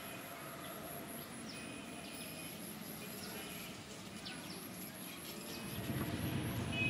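Birds chirping with short, falling calls over a low outdoor background hum, with faint steady high insect tones; a louder low rumble builds near the end.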